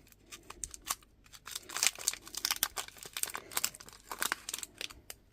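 Foil Pokémon TCG booster pack wrapper crinkling and being torn open: a run of irregular crinkles and rips.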